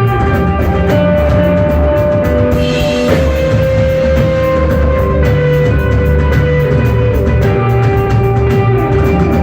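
Instrumental rock band playing live: electric guitar holding long notes over bass and a drum kit, with the drums keeping a steady beat of several strokes a second.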